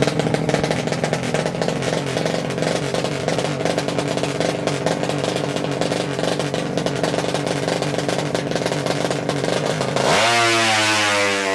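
A 200cc horizontal-cylinder drag-race motorcycle engine running at a steady, rattly high idle, then revved hard about ten seconds in, its pitch climbing sharply.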